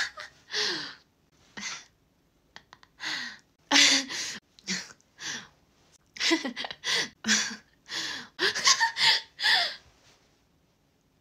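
A young woman's breathy laughter and gasps in short bursts, with quick runs of laughs in the second half.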